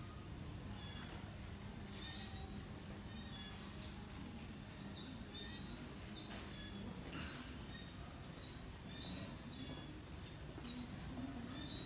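A small bird chirping over and over: one short, high, falling chirp about once a second, over a faint low background hum.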